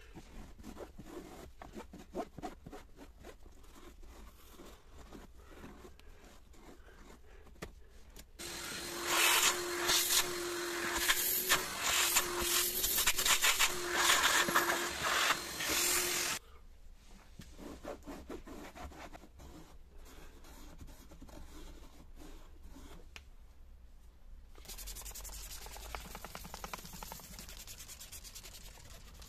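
Cleaning cloth and brush rubbing on the plastic cup holders of a car's centre console, scrubbing and wiping away cleaner foam. Soft strokes come first, then much louder rubbing for about eight seconds from a third of the way in. A quieter steady hiss follows near the end.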